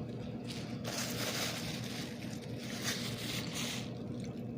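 Close-up chewing and crunching of a mouthful of green beans, an irregular wet crunching over a steady low hum.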